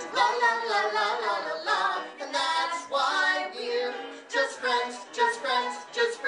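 A man and a woman singing together into microphones, in a light musical-theatre style.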